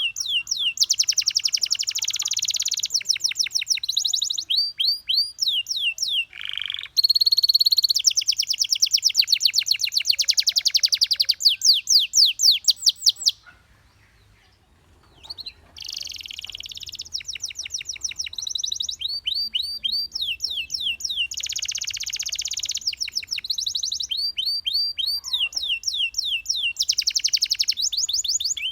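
Domestic canary singing: a fast song of rapid trills, each a run of quick repeated sweeping notes, changing from phrase to phrase, with a pause of about two seconds midway.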